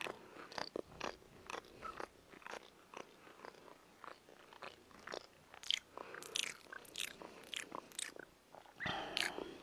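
A small dog licking and chewing at its paw: a run of irregular smacking clicks, about two a second, growing denser near the end.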